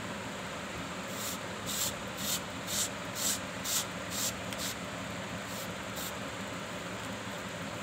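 A hand rubbing briskly along a bare forearm: a run of about eight quick swishes, roughly two a second, then two more after a short pause, over a steady background hiss.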